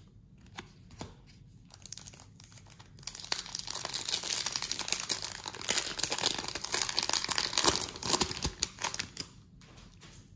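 Foil wrapper of an Upper Deck MVP Hockey card pack being torn open and crinkled in the hands. The crackling and tearing starts about three seconds in and lasts about six seconds, after a few light handling clicks.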